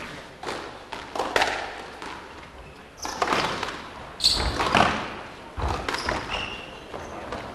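Squash rally: the ball is struck by rackets and smacks off the walls in a run of sharp hits, irregularly spaced, with a couple of short shoe squeaks on the wooden court floor.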